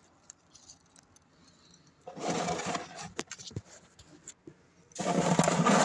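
Scraping and rustling from the container holding two curled-up armadillos, with a few clicks. It comes as a short burst about two seconds in and a longer, louder one starting near the end.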